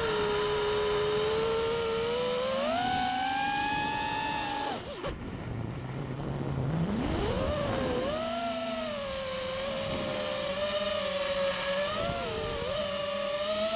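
FPV quadcopter's brushless motors and propellers whining, the pitch rising and falling with the throttle. About five seconds in the throttle is chopped and the whine drops to a low hum, then climbs steeply back up about seven seconds in.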